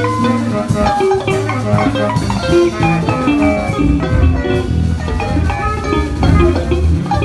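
Instrumental band improvising a syncopated passage: guitar lines over a bass guitar and drum kit.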